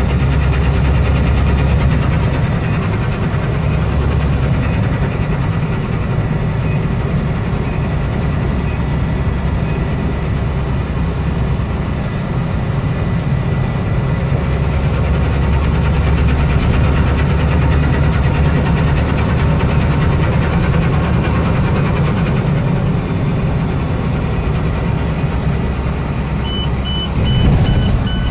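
Steady engine and road drone heard inside the cab of a moving truck on the highway. Near the end, a run of about five quick electronic beeps.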